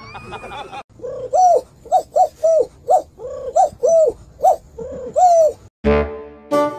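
A quick series of about a dozen short cooing calls, each rising and then falling in pitch. Near the end it cuts to music with held, horn-like notes.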